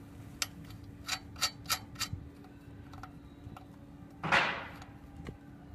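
Small metal clicks as the front axle nut and spacer of a drift trike wheel are worked by hand on the fork end, about six sharp ticks in the first two seconds, then a short, louder rasping noise about four seconds in. A faint steady hum runs underneath.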